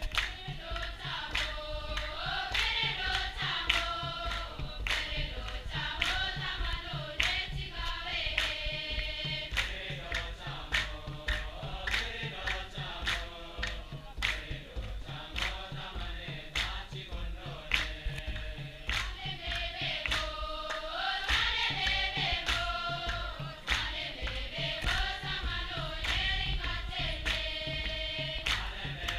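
Church choir singing a hymn in unison, kept to a steady beat of sharp strikes a little under two a second.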